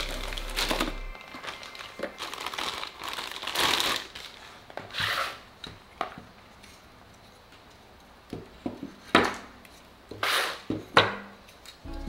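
Unpacking PC case fans by hand: cardboard box flaps and a plastic bag rustling and crinkling, with several sharp knocks in the second half as the plastic-framed fans are set down on a tabletop.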